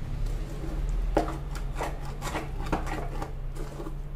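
A spatula stirring and scraping a thick moong dal and jaggery paste around a non-stick pan in repeated strokes, working it off the bottom where it has begun to stick.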